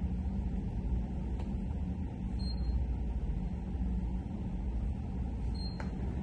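A steady low rumble, with a faint short high beep recurring about every three seconds.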